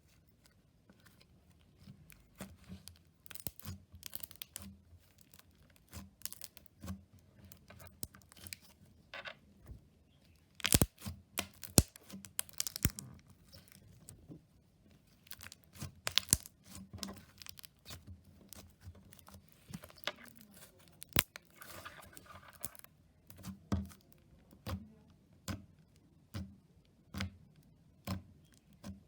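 Slime being pressed, stretched and poked by hand, making many irregular sticky clicks and pops, with a few louder pops about a third of the way in.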